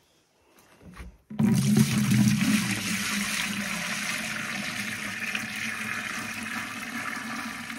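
Rice wash water poured from one plastic bucket into another: a steady, splashing pour that starts suddenly about a second in and is heaviest at first.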